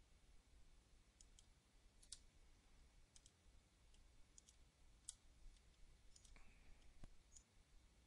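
Faint computer mouse clicks, about ten short clicks at irregular intervals, over near-silent room tone.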